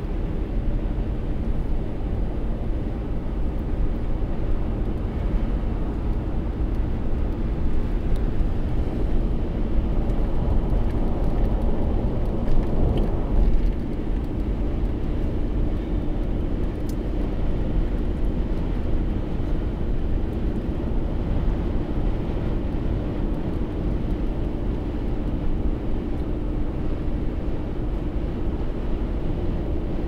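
Steady road noise inside a car driving at highway speed: tyre roar on the asphalt and a low engine hum, with a brief louder swell about halfway through.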